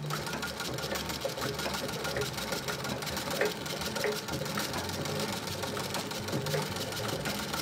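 1939 Singer 201K treadle sewing machine stitching steadily through fabric, the needle running at a fast, even rhythm.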